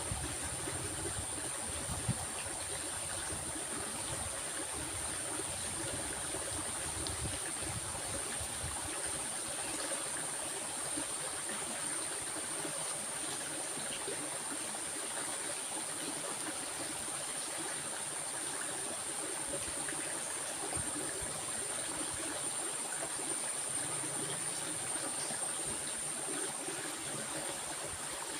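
Stream water running steadily, with a constant high-pitched hiss above it.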